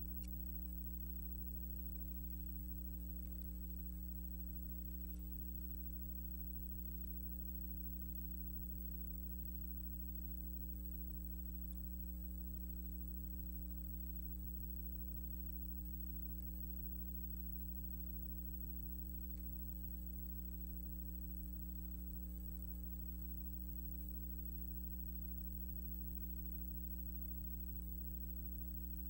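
Steady electrical mains hum with its higher overtones, unchanging throughout, and no other sound.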